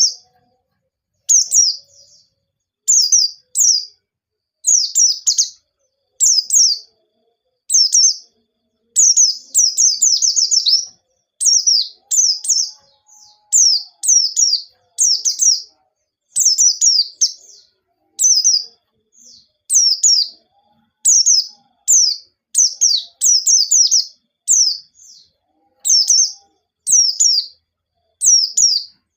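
White-eye (pleci) singing loudly: high-pitched phrases of quick falling notes, each about a second long, repeated with short pauses between them, with a longer, denser run about ten seconds in.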